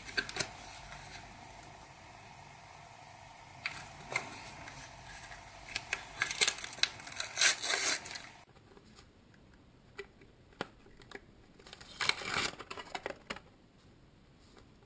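Panini sticker packet being torn open and crinkled, with a run of crackling that is loudest just before the middle. Then come scattered light clicks and a short rustle as the stickers are handled.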